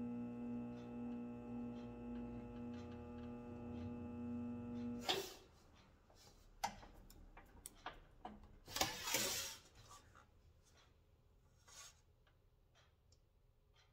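Electric bead roller's motor running with a steady hum, then stopping suddenly about five seconds in. After it, light clicks and a brief scraping rub of the sheet metal being handled on the bench.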